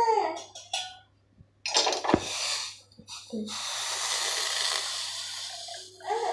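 Freshly boiled lemongrass milk tea being poured from the pan into a cup. A clunk of the pan about two seconds in, then a steady pouring hiss for about four seconds that stops near the end.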